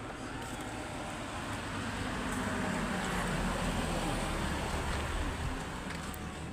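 A road vehicle passing: a low engine and tyre rumble that builds to its loudest about halfway through, then fades.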